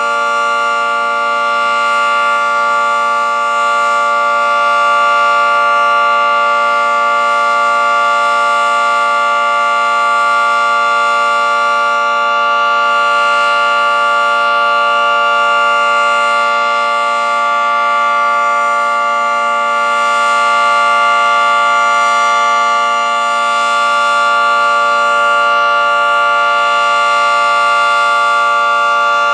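Federal Signal 2T22A two-tone outdoor warning siren sounding a steady alert. Its dissonant chord holds a constant pitch, while the loudness swells and fades slowly as the rotating siren head sweeps past.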